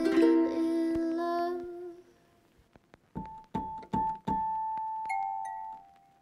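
Background piano music: a held chord fades away, then after a brief pause slow single notes are played one at a time.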